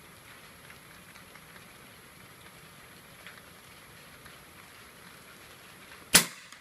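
Steady rain with faint scattered ticks, then a single sharp, loud shot from a PCP air rifle firing a pellet about six seconds in.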